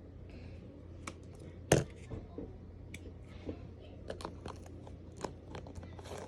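Slime being squeezed and pressed, giving irregular sharp clicks and pops, with one louder pop about two seconds in.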